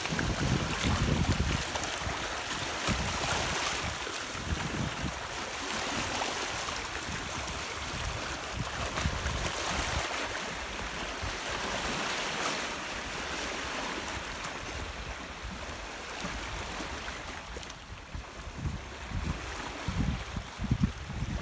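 Sea waves lapping and breaking over shoreline rocks, a steady rushing wash. Wind buffets the microphone in low rumbling gusts, strongest at the start and again near the end.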